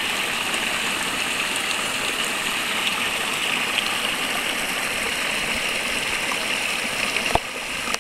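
A small woodland brook running and splashing over mossy rocks: a steady rushing of water. A single sharp click near the end.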